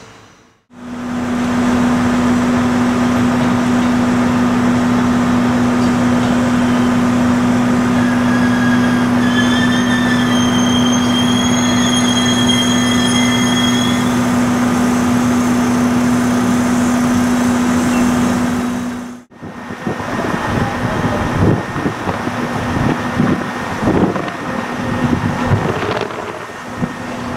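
Electric trains standing at a railway platform: a steady, unchanging electrical hum with faint high whines in the middle. After a cut about two-thirds through, the sound turns uneven, a rumble with scattered knocks.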